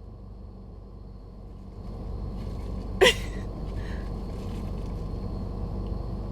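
Car cabin engine and road noise, growing louder about two seconds in, with one short, loud, sharp sound about three seconds in.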